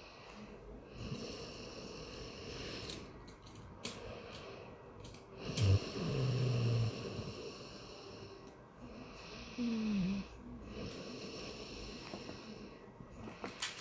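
A man snoring in his sleep: soft, noisy breaths with two loud snores. The first is a steady low snore about a second long, about six seconds in; the second, near ten seconds, is shorter and falls in pitch.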